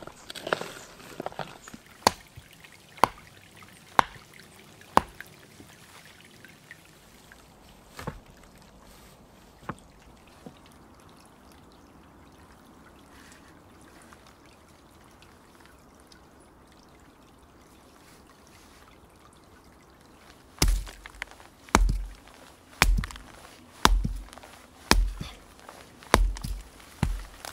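A wooden stake being pounded into soft earth with a heavy hand-held striker: about seven heavy thuds roughly a second apart in the last seven seconds. Earlier there are a few sharp single knocks, about one a second, then a quiet stretch.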